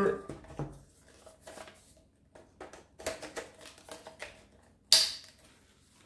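Small plastic clicks and knocks as parts of a Lacidoll cordless vacuum cleaner are handled and fitted together, with one sharper, louder click about five seconds in.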